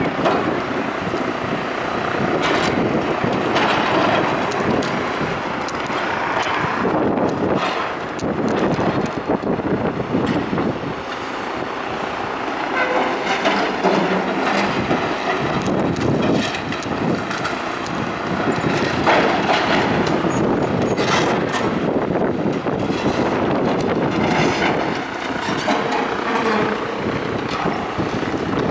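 Heavy demolition machinery working: a continuous mechanical rumble with repeated clanks and scraping.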